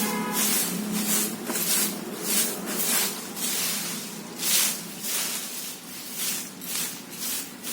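Repeated short swishing or scraping strokes, about two a second and uneven in strength.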